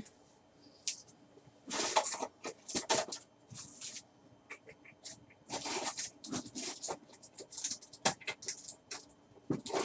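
Trading cards and plastic being handled: intermittent soft rustles and light clicks.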